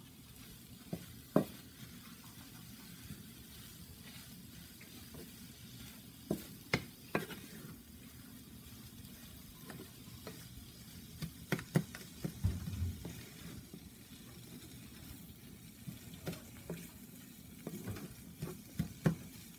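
A wooden slotted spatula stirring and scraping a dry grated-cauliflower stuffing around a cast-iron skillet, with scattered sharp knocks of the spatula against the pan, in clusters near the middle and toward the end, over a steady faint frying sound; the cauliflower's moisture has cooked off.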